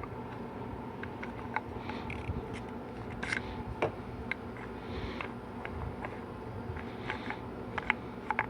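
Scattered light clicks and taps of a seal sizer tool and 4L80E transmission parts being handled, over a steady background hum.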